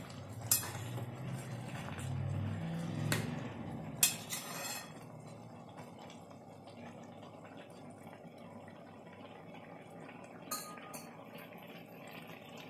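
A steel ladle stirring grated carrots cooking in milk in a metal pan, scraping and clinking against the pan, with a few sharp knocks in the first four seconds. After about five seconds the stirring stops, leaving a steadier, quieter sound of the milk and carrots simmering, with one more clink near the end.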